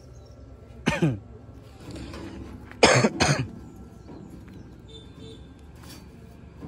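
A man clears his throat about a second in, then coughs twice loudly about three seconds in.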